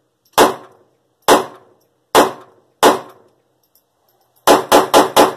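Shots from a Phoenix Arms HP22A .22 Long Rifle semi-auto pistol: four shots about a second apart, then a quick string of five near the end. Each crack trails off briefly.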